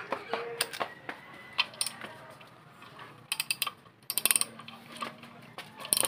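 Ratchet wrench clicking, a few single clicks and then two quick runs about three and a half and four seconds in, as it works the rotor shaft bolt of a Promate 1500 gasoline generator whose shaft rust had kept from turning.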